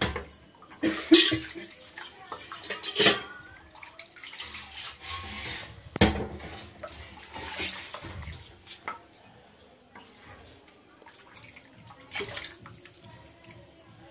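Steel ladle stirring thin kadhi in a steel kadai, lifting it and pouring it back in with splashing and pouring of liquid, and several sharp knocks of the ladle against the pan.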